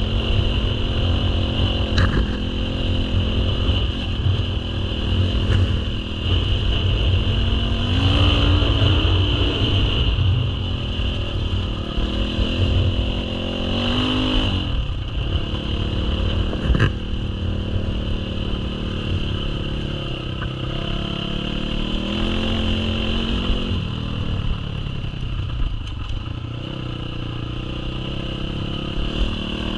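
Dirt bike engine running under load on a rough dirt track, its revs climbing and dropping several times with the throttle. A few sharp knocks and clatters break in, the loudest about 17 seconds in.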